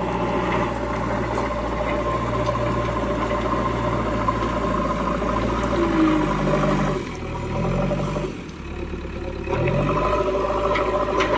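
Diesel engine of a JCB 3DX backhoe loader running under load. It drops off about two-thirds of the way through, then revs back up twice.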